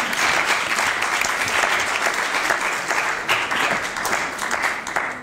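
Audience applauding, a dense wash of many hands clapping that thins out and fades near the end.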